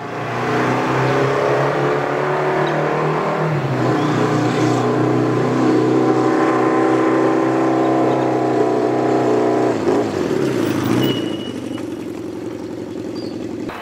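Motorcycle engine running steadily as the bike rides along. About ten seconds in the engine note dips and rises again as it slows, then it runs on lower and quieter.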